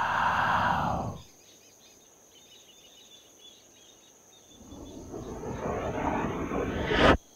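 Swells of noise, rising in loudness and cutting off abruptly: one ends about a second in, then comes a quiet lull with faint bird chirps, then a second swell builds over a couple of seconds to a sharp hit and a sudden cut near the end, like the risers of film sound design.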